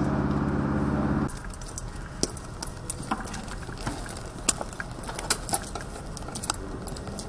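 A steady low mechanical drone cuts off abruptly about a second in. It is followed by scattered light clicks and metallic clinks from a pilot's flight helmet and harness fittings as the helmet is pulled on and adjusted.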